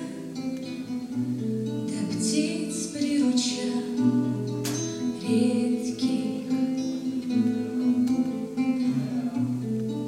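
Acoustic guitar playing an instrumental passage between sung verses, with chords changing every second or so and an occasional sharp strum.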